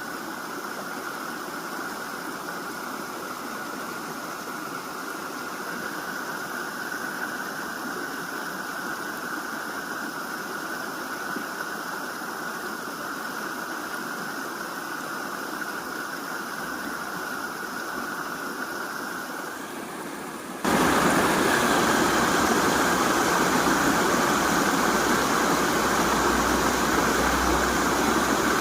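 Steady rush of river water, turning suddenly louder and fuller about two-thirds of the way in.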